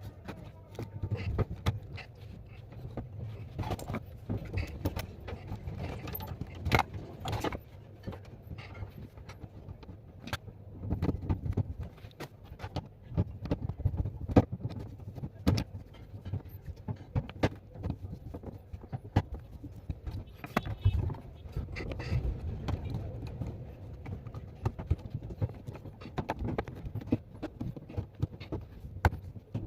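Irregular clicks, taps and clatter of hands and tools working on a front-loading washing machine's door lock, with a low rumble of handling noise underneath.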